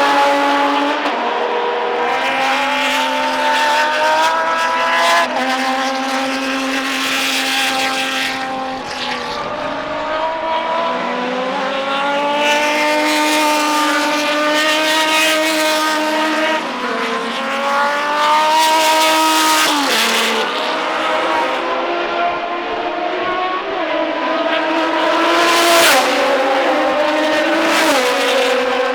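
Procar 4000 race cars' inline six-cylinder engines revving hard, more than one at once. The pitch climbs through gears in several long sweeps and drops sharply between them.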